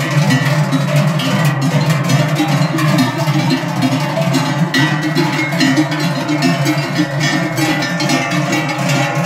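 Many large Swiss cowbells (Trycheln) swung by a group of bell-carriers as they walk, clanging together in a dense, loud jangle.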